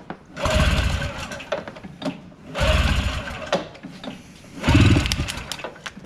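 A 1983 Yamaha snowmobile's two-stroke engine being cranked over by its pull starter, three pulls about two seconds apart, each a burst of about a second that spins the engine without it catching. The ignition is switched off, so it does not fire.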